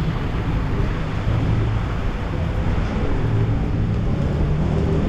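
Motorcycle engine running steadily while riding, a low hum that swells slightly now and then, with wind noise on the microphone.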